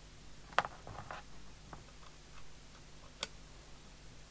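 Light clicks and taps from plugs, leads and the opened CB radio being handled on a bench: a sharp click about half a second in, a few faint ticks, and another sharp click about three seconds in.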